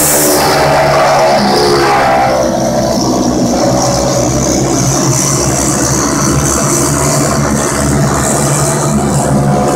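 Racing go-karts with flathead single-cylinder engines running hard around a dirt oval, the engine pitch rising and falling. One kart passes close at the start, then the engines carry on steadily farther around the track.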